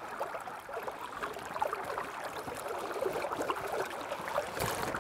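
River water gurgling and splashing lightly at the side of a boat, many small irregular splashes, with a slightly bigger splash near the end, as a trout is held in the current for release.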